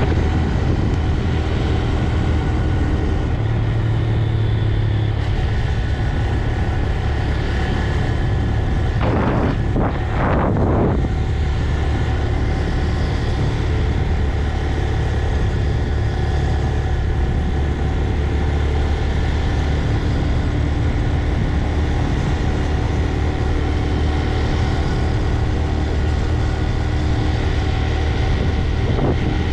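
Stock 2025 Honda Grom's 125 cc air-cooled single-cylinder four-stroke engine, heard from the rider's seat while riding at a fairly steady pace, its pitch shifting a few times with throttle. A brief rush of noise comes about ten seconds in.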